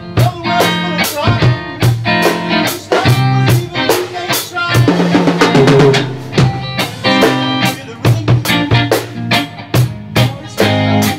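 A rock band playing an instrumental jam: a drum kit keeps a steady beat under guitar chords and bass, with a busier run of guitar notes about halfway through.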